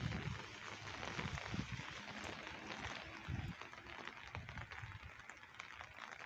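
Steady hiss of rain falling on wet pavement and foliage, with the low, irregular thuds of footsteps on the wet path about once a second.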